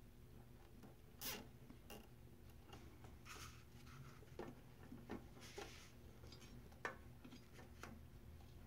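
Faint, scattered clicks and rustles of wiring being handled and bundled with zip ties inside a 3D printer's electronics bay, about eight short sounds over a faint low hum.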